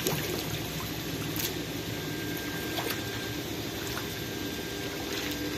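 Steady trickling and sloshing of shallow pond water, with a faint steady hum underneath.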